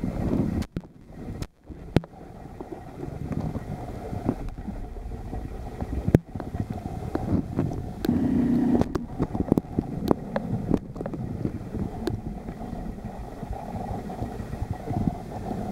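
Muffled underwater rumble picked up by a submerged camera in a pool, with scattered clicks and knocks. A short low hum comes in about eight seconds in.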